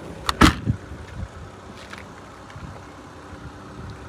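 A car tailgate being shut: a click, then a loud thump about half a second in, followed by a few lighter knocks, over a steady low background hum.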